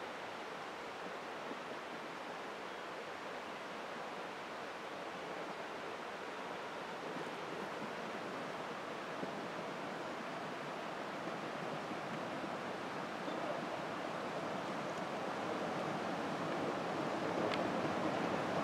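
A 15-inch gauge steam locomotive hauling coaches, heard as a steady rushing noise of its exhaust and wheels on the rails that grows gradually louder as it approaches.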